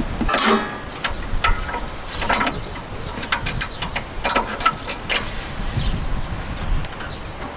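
Ratchet wrench clicking in short irregular runs as the bolts of a tractor seat mount are turned, with short pauses between strokes.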